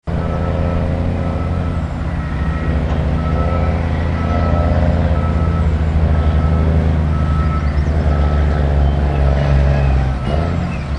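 Heavy diesel engine of a Caterpillar articulated dump truck running steadily, with a backup alarm beeping in a regular series over it.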